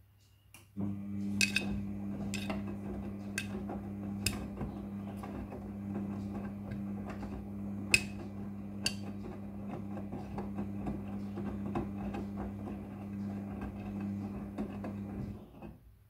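Front-loading washing machine drum tumbling a load of jeans in soapy water: a steady motor hum with water sloshing, starting about a second in and stopping shortly before the end. Sharp metallic clinks, the jeans' buttons and rivets striking the steel drum, come about once a second for the first few seconds and twice more around the middle.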